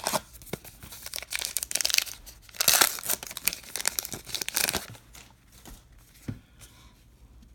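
Paper trading-card pack wrapper being torn open and crinkled, in irregular bursts of crackling that are loudest about three seconds in. After about five seconds it goes quieter, with only a few soft clicks as the stack of cards is handled.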